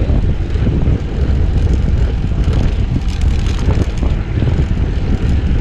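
Wind rushing over the camera microphone and tyre rumble from a road bike riding over cracked, patched asphalt, with a few faint bumps.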